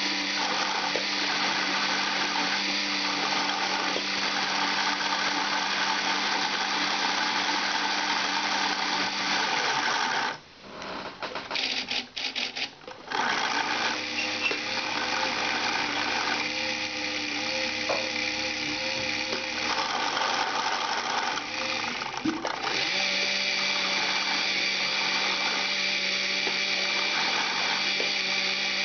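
A Lego electric motor and plastic gear train run with a steady whirr, driving a paintbrush arm. The machine cuts out for about two seconds roughly ten seconds in, then starts again with a slightly different pitch.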